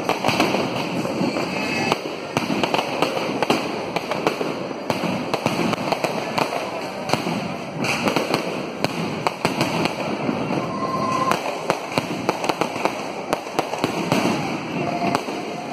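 Fireworks display: a dense, continuous run of irregular cracks and pops from aerial fireworks bursting.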